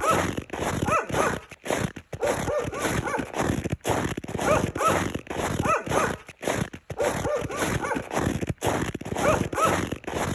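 Footsteps walking through snow at a steady pace, about one and a half steps a second, each step crunching and squeaking.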